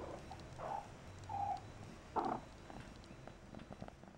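Persian kitten mewing: four short mews in the first half, the loudest about two seconds in, followed by a few faint ticks.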